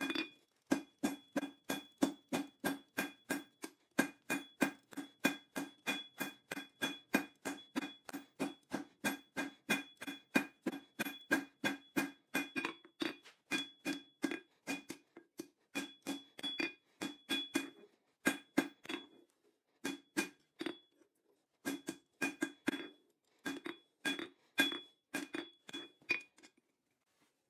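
Hammer blows on a ringing steel anvil, forging a bar of coil-spring steel: a steady run of about three strikes a second, each with a clear metallic ring, broken by a few short pauses in the second half.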